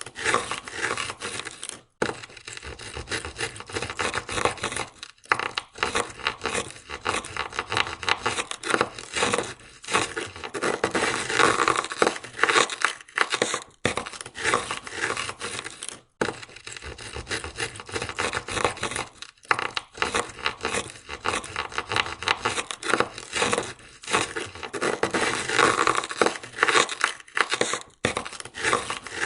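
Ice scraper scraping ice off a car window in quick, repeated strokes, with short pauses every few seconds.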